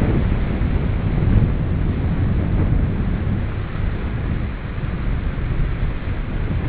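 Wind buffeting the microphone in a loud, uneven low rumble, over the wash of small waves breaking on a rocky shore.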